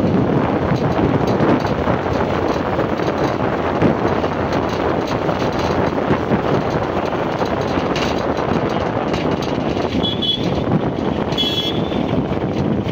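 Steady rush of road and wind noise from riding in a moving vehicle through traffic, with two short high beeps near the end.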